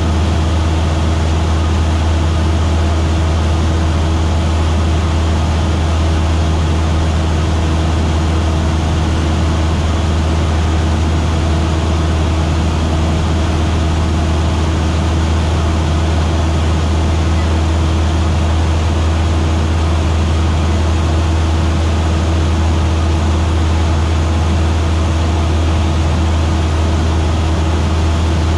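Single-engine light aircraft's piston engine and propeller droning loudly and steadily in level cruise flight, with a deep hum and a steady overtone above it.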